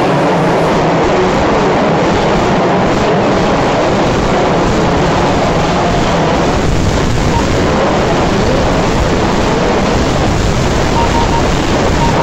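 Several 4WD radio-controlled off-road racing cars running together on a dirt track: a steady mix of motor whine rising and falling in pitch as they accelerate and slow. A few short beeps sound near the end.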